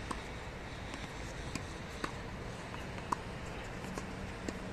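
Tennis balls struck by rackets and bouncing on a hard court: about five scattered sharp pops, the loudest about three seconds in, over a steady low background noise.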